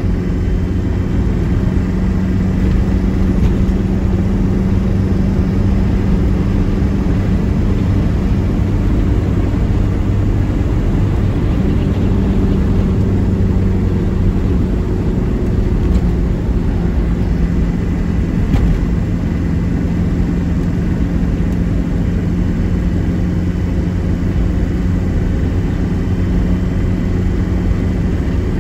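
Steady engine drone and road rumble inside a car cruising at a constant speed.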